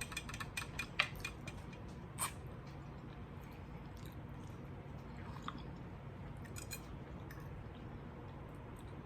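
Close-up chewing while eating bony adobo chicken. There is a cluster of small clicks in the first two seconds, a sharper click about a second in, another short run of clicks near seven seconds, and quieter chewing in between.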